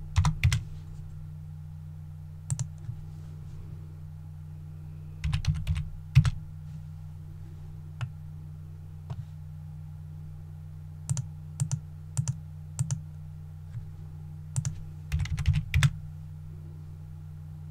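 Computer keyboard keys being tapped in scattered clusters of short clicks, over a steady low hum.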